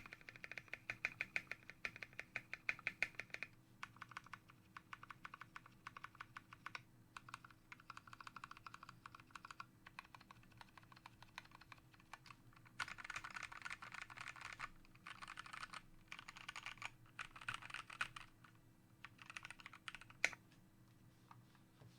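Typing on a custom 60% mechanical keyboard with lubed Gateron SMD switches, an aluminium Tofu case and plate, and ABS keycaps: fast runs of keystrokes broken by short pauses, the longest about ten seconds in, with one louder key strike near the end.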